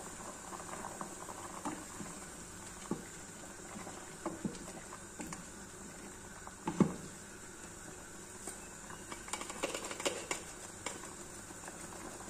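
Wooden spoon stirring a simmering soup in an aluminium stockpot: light scattered knocks of the spoon against the pot over a steady low bubbling hiss, the loudest knock about seven seconds in.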